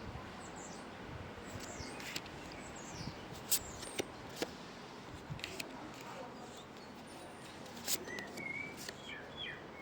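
Faint outdoor ambience: small birds chirping now and then, more often near the end, over a steady low hiss, with a few sharp clicks scattered through it.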